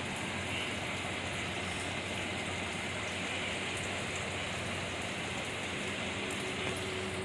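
A steady, even hiss with a faint low hum underneath, unchanging throughout.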